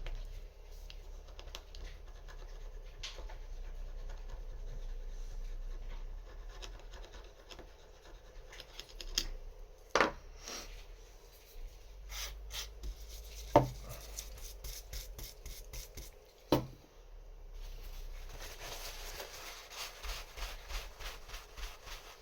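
A small brush scrubbing and rubbing grime off a metal lock part wet with contact cleaner, with a few sharp knocks between about nine and seventeen seconds in and steadier rubbing near the end.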